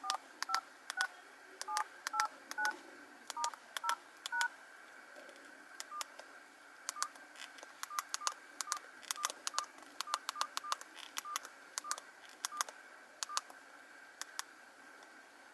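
Alcatel 1010D phone keypad being pressed key by key. For the first four seconds or so, each press gives a short two-tone DTMF beep with a key click, stepping across the keypad rows in order, about two a second. From about six seconds in comes a quicker, uneven run of short single-pitch key beeps with clicks, which stops a couple of seconds before the end.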